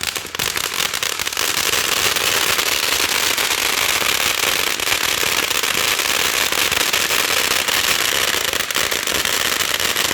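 Consumer firework going off in a dense, continuous crackle of rapid small pops without a break, growing louder about a second in and then holding steady.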